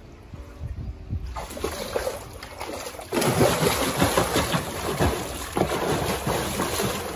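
A swimmer kicking and stroking at the surface of a pool, splashing water. The first three seconds hold only faint water sounds while the swimmer glides underwater; the loud splashing starts suddenly about three seconds in.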